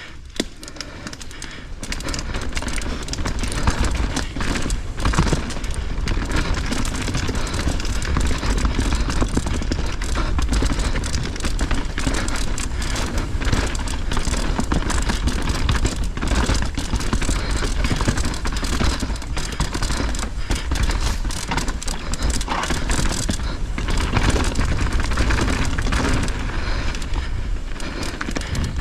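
Hardtail mountain bike riding fast down a rough trail: a steady rush of wind on the microphone under tyre noise on dirt, with constant clattering and rattling of the bike over bumps. It builds up about two seconds in as the bike gathers speed.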